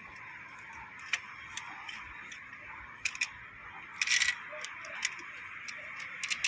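Light clicks and taps of a car's water pump being handled and turned over: a few scattered sharp clicks and a short rattle about four seconds in, over a steady background hiss.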